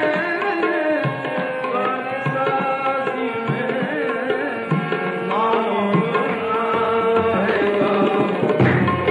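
Qawwali music: tabla drumming under held and wavering pitched lines, typical of harmonium and voice. The sound is cut off above the upper midrange, as on an old recording.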